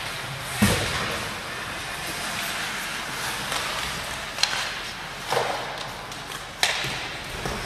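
Ice hockey game in an indoor rink: a steady arena hum with four sharp knocks from play on the ice, typical of sticks, puck and boards. The loudest is a heavy thud just under a second in; the others come at about four and a half, five and a half and six and a half seconds.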